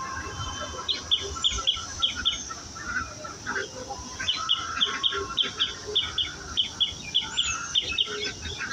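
Birds chirping outdoors, one of them repeating a short high note in quick runs of about four a second, twice, over a steady high hiss.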